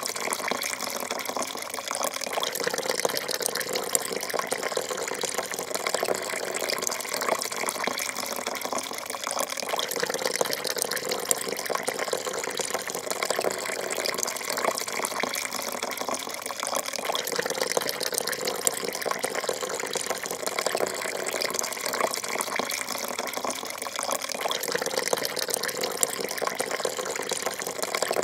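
A thin stream of coffee pouring steadily into a porcelain cup, splashing and trickling into the coffee already in it.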